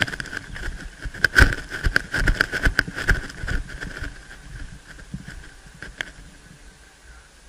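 Footsteps and gear movement of a person moving through forest undergrowth, heard close up: a run of irregular knocks, thumps and rustles in the first half that thins out and fades toward the end.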